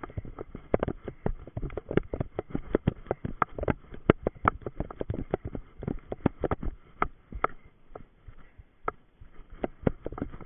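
A runner's quick, irregular footfalls through forest undergrowth, with the crunch and crackle of feet striking and brushing through grass, heather and twigs. The steps thin out briefly about eight seconds in.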